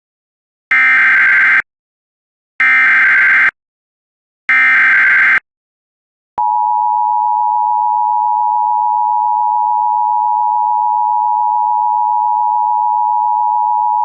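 Emergency Alert System SAME header: three identical bursts of digital data tones, each about a second long with a second's gap between them. About a second after the last burst the EAS two-tone attention signal (853 and 960 Hz together) starts and holds steady and loud, opening a tornado warning alert.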